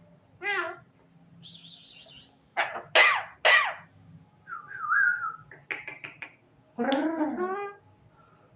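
Javan myna calling in a varied string of whistles, harsh squawks and chatters, with three loud calls in quick succession near the middle.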